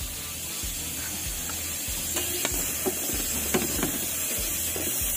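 A steady hiss over a low hum that breaks off at regular intervals, with several light clicks and knocks from about two seconds in.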